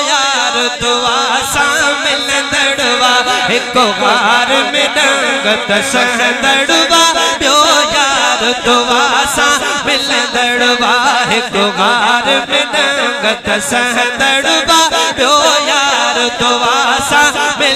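A man's solo voice chanting an Islamic devotional verse into a microphone, amplified, in a long wavering, ornamented melody.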